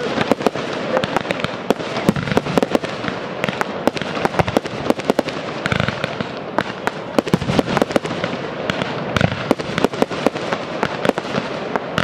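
Fireworks display: a dense, unbroken barrage of launches and aerial bursts, several sharp bangs a second over a steady rushing noise.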